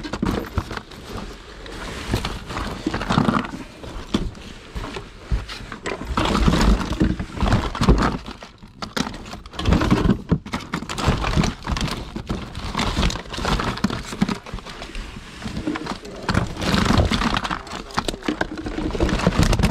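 Hands rummaging through a box of small belongings: irregular rustling, clattering and knocking as items are moved and picked out.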